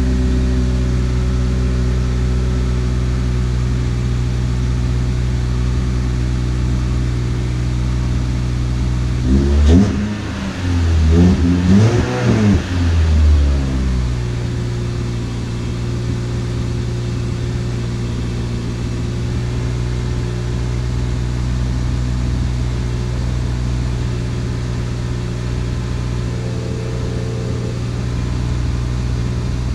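Toyota Celica inline-four engine idling steadily through a freshly fitted short ram intake and aftermarket exhaust, with a few quick throttle revs about a third of the way in before it settles back to idle.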